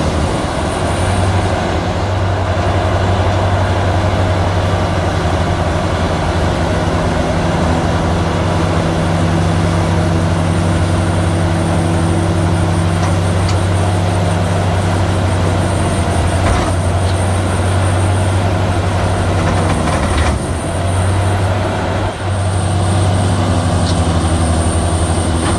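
EP5500 Shark V industrial hammer-rotor shredder running under load while shredding branches and green waste: a loud, steady engine and rotor drone at a constant pitch, with a couple of short dips near the end.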